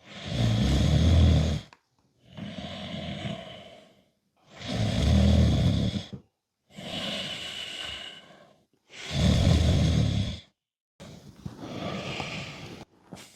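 A person snoring loudly in a regular rhythm: three deep inhaled snores, each about a second and a half, alternating with quieter hissing exhales, and a softer breath near the end.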